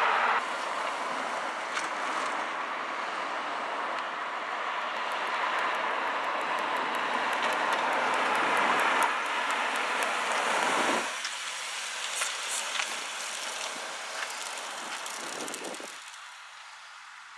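BMW 328i convertible driving past on a road, mostly the hiss of tyres on pavement with little distinct engine note; the level drops in steps and it is quieter near the end.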